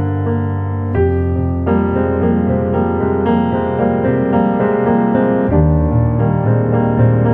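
Background piano music, its chords changing about a second in and again past the middle.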